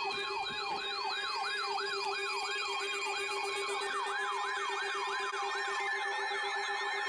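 Several electronic sirens sounding together, each sweeping quickly up and down in pitch over and over, layered over steady held tones.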